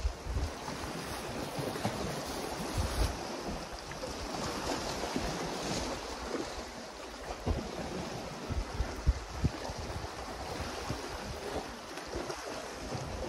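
Sea swell washing against the rocks, with wind buffeting the microphone in uneven gusts.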